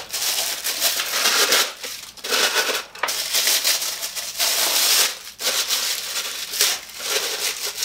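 White packing wrap crinkling and rustling as it is handled and pulled off a new blender, in several bouts with short pauses between.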